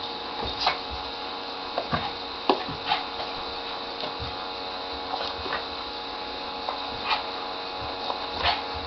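Bubble machine's small motor running with a steady whirring hum, with irregular sharp clicks and knocks over it.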